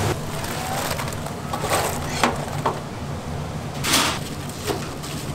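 Crisp scrapes and crackles of freshly fried dumplings being pushed about in a wire frying strainer, a few short ones scattered through, over a steady low hum.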